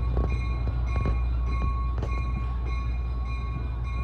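Passenger railway coaches rolling past: a steady low rumble with the wheels clicking over rail joints about twice a second, and a thin high squeal from the running gear.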